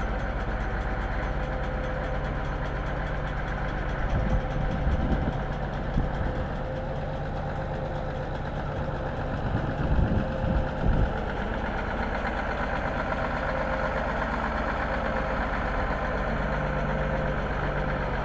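P&H excavator running steadily, a constant mechanical drone with a few low thuds about a quarter of the way in and again just past halfway.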